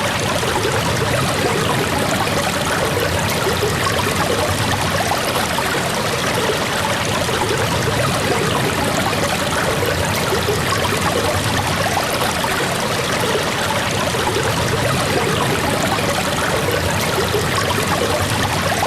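Steady heavy rain, an even rushing of water with a fine patter, unchanging throughout.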